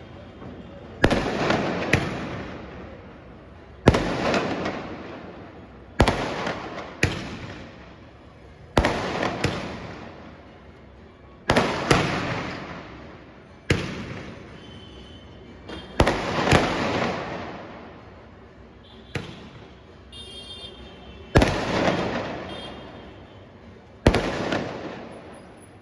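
A multi-shot Diwali firework cake (a '150 shot' pataka) firing. There is a loud bang every one to three seconds, sometimes two close together, and each fades out in a decaying rumble.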